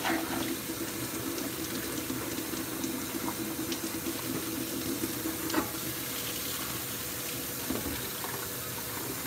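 Water running steadily from a tap into a sink, with a few light clinks about three to six seconds in.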